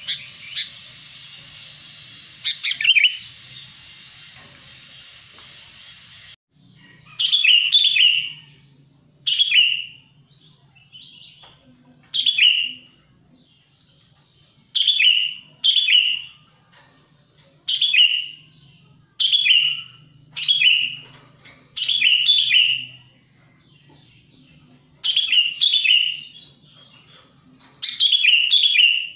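Sooty-headed bulbul (kutilang) calling again and again in short, bubbly phrases that fall in pitch, one every second or two. A steady hiss lies under the first six seconds and then cuts off suddenly.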